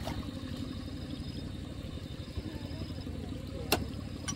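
Single-cylinder diesel tractor engine idling steadily with an even, rapid low pulsing. A sharp click cuts through it near the end.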